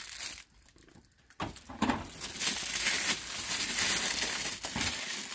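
Plastic bag crinkling as a hard case wrapped in it is handled, starting about a second and a half in after a brief lull.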